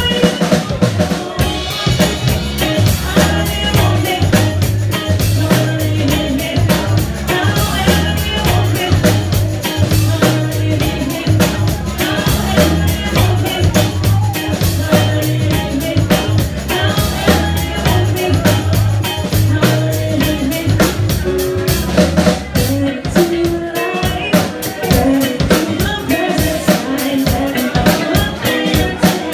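Live band playing an upbeat groove: electric guitars over a bass line and a steady drum-kit beat, with a singer's voice at times.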